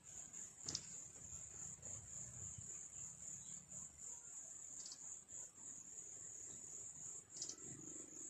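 A high, steady insect trill pulsing quickly and without break, with three short, sharp high chirps standing out about a second in, near the middle and near the end.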